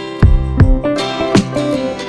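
Background music led by a plucked, strummed acoustic guitar, with notes struck a few times a second.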